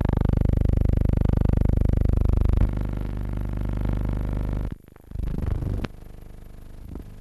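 Steady electrical buzz with many overtones on the soundtrack of a silent film transfer, not recorded sound from the scene. It changes tone and level abruptly a few times and briefly drops out a little past halfway.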